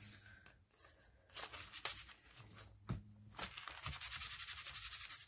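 Paper rustling as a cut paper tag is handled and laid on a journal page, then hands rubbing quickly back and forth over the paper near the end.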